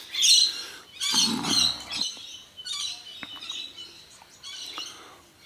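Birds calling and chirping in a series of short, loud bursts that grow fainter toward the end.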